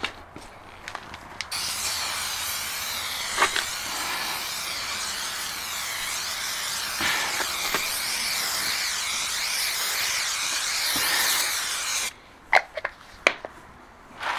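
Aerosol can of 3M Super 77 spray adhesive hissing steadily as the glue is sprayed on. It starts about a second and a half in, lasts about ten seconds, cuts off suddenly, and is followed by a few sharp clicks and taps.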